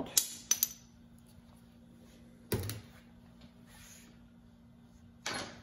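Workshop handling noise of hand tools being set down and moved: a few sharp clicks just after the start, then two short clattering knocks about two and a half and five seconds in, over a faint steady hum.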